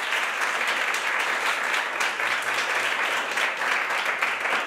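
Audience and cast applauding together: steady, dense hand-clapping.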